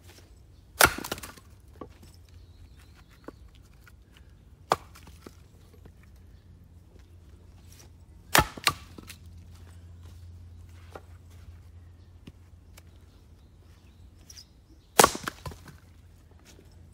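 An axe splitting black locust firewood on a chopping block: three heavy chops several seconds apart, the middle one followed at once by a second knock, with a few lighter knocks of wood between.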